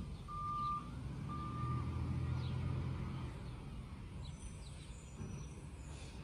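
Garbage truck reversing: its backup alarm gives two more steady beeps about a second apart, then stops, while the diesel engine runs, louder for a second or two. Birds chirp briefly toward the end.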